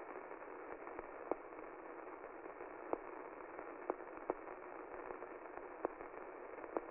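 Faint, thin static hiss with scattered sharp clicks and crackles.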